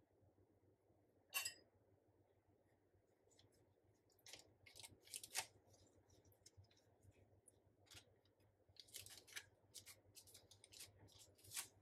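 Faint, scattered rustling and scraping as nitrile-gloved hands are wiped on a cloth, with one sharper click about a second and a half in.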